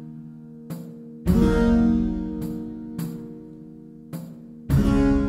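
Instrumental background music: deep ringing chords struck about a second in and again near the end, each fading out, with lighter plucked notes between them.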